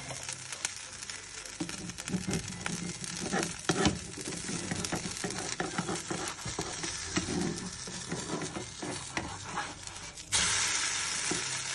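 Vegetable dosa frying in a little oil in a nonstick pan, sizzling, with a spatula scraping and knocking against the pan as the dosa is loosened. A little after ten seconds in the dosa is flipped onto its raw side and the sizzle suddenly jumps louder.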